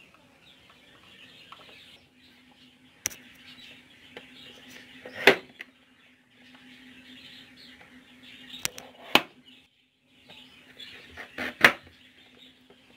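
Plastic push-down vegetable dicer cutting raw potatoes through its grid blade: a handful of sharp clacks as the lid is pressed down, the loudest about five seconds in, over a faint steady low hum.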